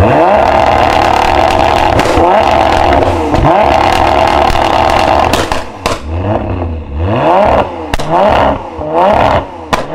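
Nissan GT-R R35's twin-turbo V6 revving while stationary: held high for about the first five seconds, then a run of quick throttle blips with sharp pops in the exhaust between them.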